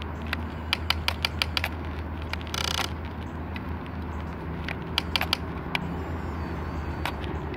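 Double E radio-controlled toy excavator's plastic tracks and small gear motors clicking and rattling as it drives over dirt. Runs of sharp clicks come near the start and again about five seconds in, with a short buzzing motor whir about two and a half seconds in.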